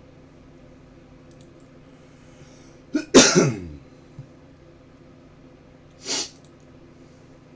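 A person's one loud, sharp explosive burst of breath and voice, like a cough or sneeze, about three seconds in, its pitch falling away. A shorter, fainter breathy puff follows about six seconds in.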